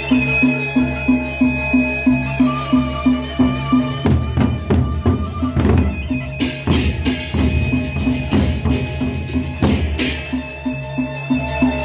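Sasak gendang beleq ensemble playing: large double-headed barrel drums struck with sticks, with clashing hand cymbals and gongs, over a steady pulse of about four beats a second. In the middle the pulse gives way to heavier, irregular drum strokes and cymbal crashes, then resumes near the end.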